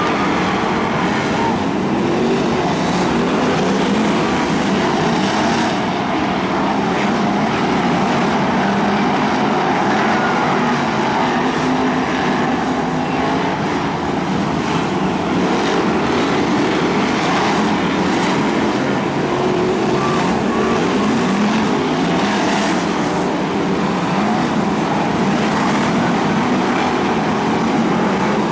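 Several BriSCA F1 stock car V8 engines racing together, overlapping, their pitch repeatedly rising and falling as the cars accelerate and back off around the oval.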